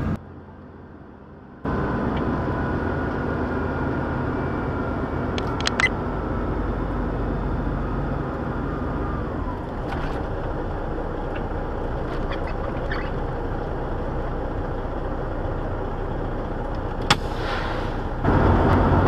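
Semi truck's diesel engine running steadily, heard from inside the cab, with a few faint clicks, getting louder near the end as the truck pulls away. A brief quiet gap comes right at the start.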